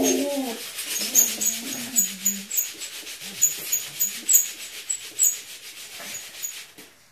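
Plastic Lego bricks clicking and rattling as a Lego city is shaken, with sharp irregular clicks a few times a second that stop near the end.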